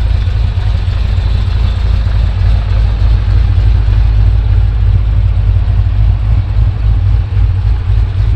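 2008 Corvette C6 Z06's 7.0-litre LS7 V8, fitted with an aggressive aftermarket cam, idling steadily. The deep, even engine note shows no revving.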